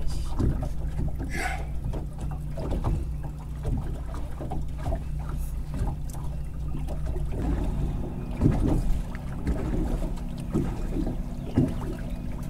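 Boat's outboard motor running steadily at slow trolling speed, a low hum that changes pitch about seven seconds in.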